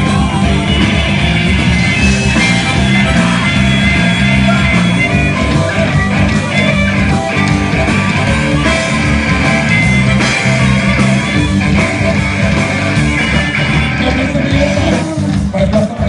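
Rock band playing a blues live: electric guitar and bass over drums with a steady beat, heard loud from right at the stage.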